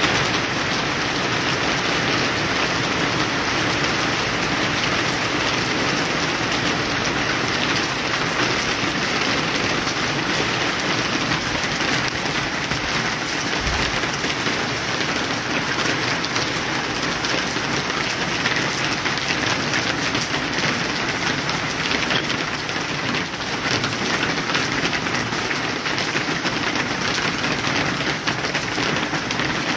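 Rain falling steadily on a wet paved street and pavement, a dense even hiss of drops.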